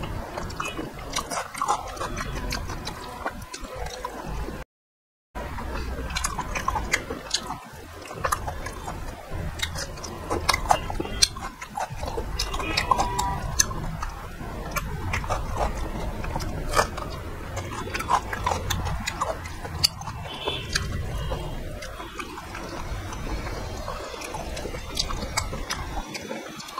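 Close-up eating sounds: wet chewing and lip smacks, with fingers squishing rice and chicken curry against a steel plate. The sharp clicks come irregularly throughout, and the sound cuts out completely for about half a second some five seconds in.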